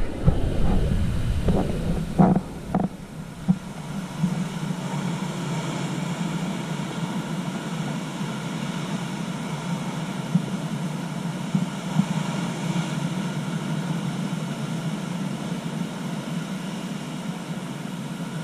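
Ocean surf breaking over a rocky shore, a steady wash of waves. Wind buffets the microphone with a low rumble for the first few seconds.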